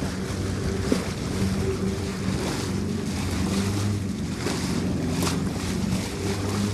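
A small boat's motor running steadily while the boat moves over the sea, with water splashing against the hull and wind on the microphone.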